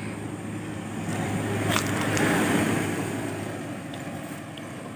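Small pickup truck passing close by and driving off, its engine and tyres swelling to their loudest about two seconds in, then fading away.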